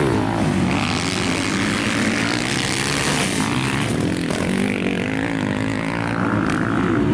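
Several motocross bike engines revving up and down at once, their pitches overlapping and rising and falling as the bikes race around the track.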